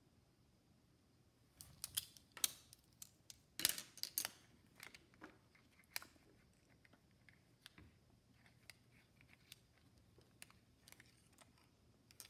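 Plastic building bricks clicking and clattering against each other and the wooden tabletop as they are handled, with a cluster of sharper clicks about two to four seconds in and lighter, sparser ones after.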